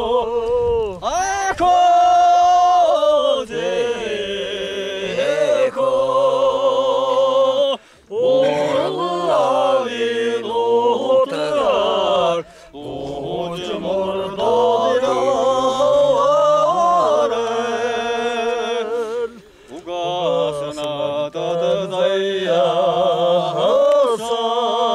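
A man singing unaccompanied in long, drawn-out phrases, holding notes with a wavering, ornamented voice and pausing twice for breath.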